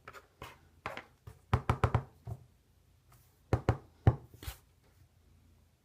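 Light knocks and taps on hard objects in a small room. A quick run of about five comes a second and a half in, and a few more follow about two seconds later.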